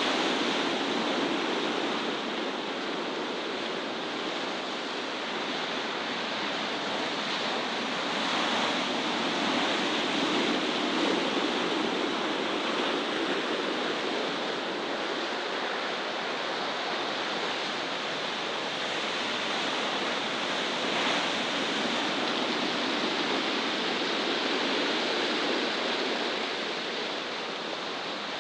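Rough sea breaking against shoreline rocks: a steady rushing wash of surf.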